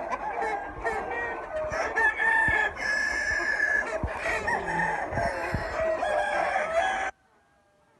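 A flock of desi chickens clucking over one another, with a rooster crowing in long drawn-out calls. The sound cuts off suddenly about seven seconds in.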